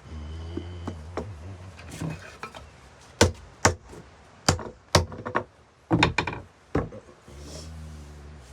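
A run of about seven sharp knocks, hard taps on wood. They come in a quick, uneven series in the middle, over a low steady hum that is heard near the start and again near the end.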